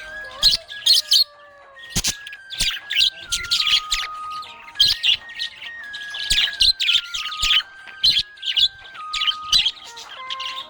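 Budgerigar chirping, a rapid run of short, high chirps through the whole stretch, over a simple tune of held notes stepping up and down.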